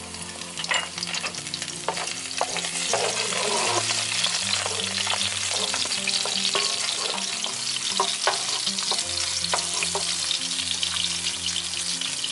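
Sliced garlic sizzling in cooking oil in a preheated nonstick frying pan, the sizzle growing louder after the first couple of seconds, with scattered clicks of a wooden spatula stirring against the pan. The garlic is being fried to draw its flavour into the oil as garlic oil.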